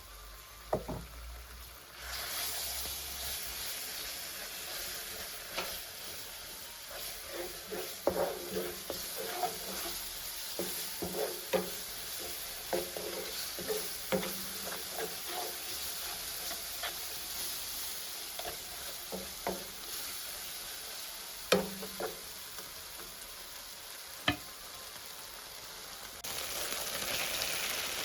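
Food sizzling in a hot pan while a spoon stirs it, knocking and scraping against the pan in quick irregular strokes. The sizzle starts about two seconds in and gets louder near the end.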